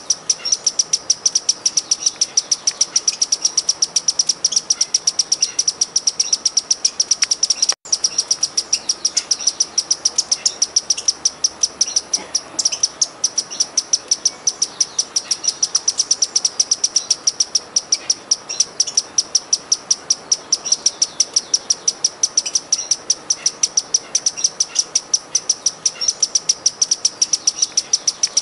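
Sparkling violetear hummingbird singing: a monotonous series of short, high chips repeated several times a second, cutting out for an instant about eight seconds in.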